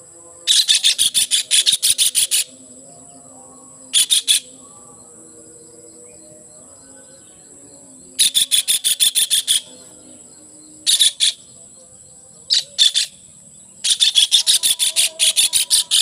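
Net-trapped kingfisher giving harsh, rapid rattling calls in six bursts of about seven notes a second, the longest about two seconds, over a steady high insect drone.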